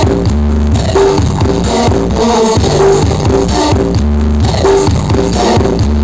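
Loud DJ dance music played through a large carnival sound system ("sound horeg"), with heavy bass repeating in a steady rhythm.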